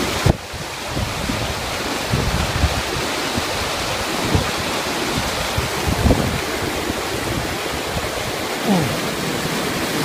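Steady rushing of stream water cascading over rock ledges at a waterfall, with wind gusting on the microphone.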